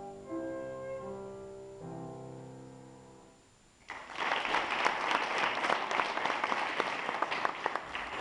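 Final notes of a flute piece with grand piano accompaniment, the last chord dying away. About four seconds in, an audience bursts into applause that keeps going.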